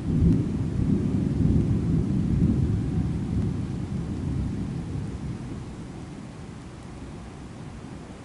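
A roll of thunder that breaks in suddenly, stays loud for about three seconds, then dies away over the next few seconds, with steady rain beneath it.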